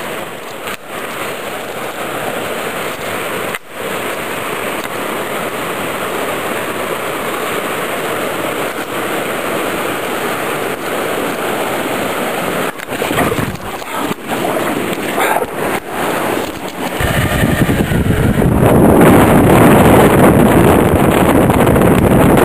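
Rushing mountain stream tumbling over rocks, a steady hiss of water. About three-quarters of the way through it gives way to louder, deeper wind noise buffeting the microphone in an open dune buggy.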